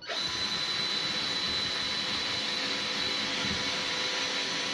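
Cordless drill driving a screw into a wooden furniture panel, its motor starting suddenly and running at a steady speed with a high whine.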